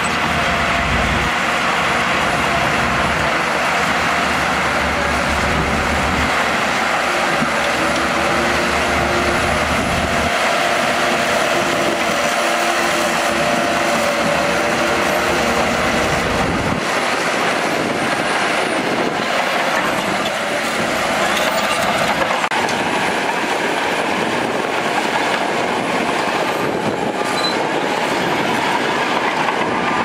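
SHANTUI DH17 crawler bulldozer working: its diesel engine running under load and its steel tracks moving as the blade pushes a pile of rock and soil, a steady heavy machine noise.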